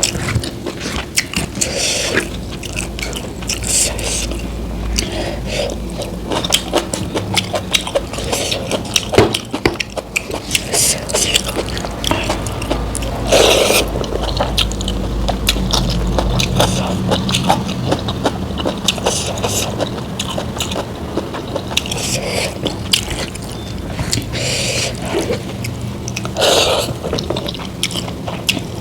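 Close-miked eating sounds: a person chewing and biting food, with many short crisp clicks and crunchy bites scattered throughout over a steady low hum.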